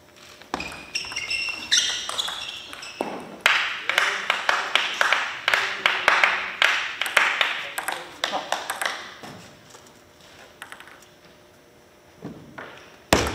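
Table tennis ball clicking and bouncing in a series of quick taps between points, with a few short high squeaks about a second in, and one sharp click near the end as play resumes.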